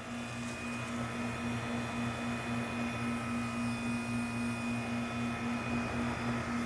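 Goodman heat pump outdoor unit running steadily, its compressor and fan giving a constant hum. The unit is still in normal heating operation with its coil iced over, not in defrost.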